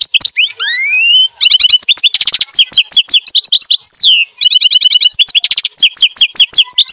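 A lovebird giving rapid strings of loud, high-pitched chirps, broken by a rising whistled sweep about a second in and a falling one about four seconds in.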